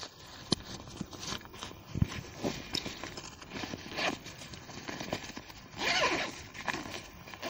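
Fabric tent carry bag being handled: scattered clicks and knocks, with a dull thump about two seconds in, then a zipper pulled open a little before the end.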